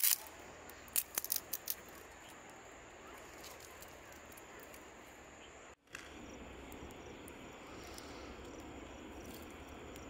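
Wood fire of sticks crackling under a cooking pan, with a quick run of sharp pops about a second in, over a steady high insect drone.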